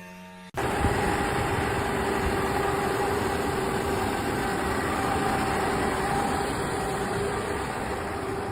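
An engine running steadily, with a steady hum in it, starting abruptly about half a second in.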